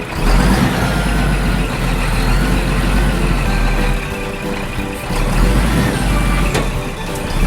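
Heavy truck engine running with a deep, steady rumble.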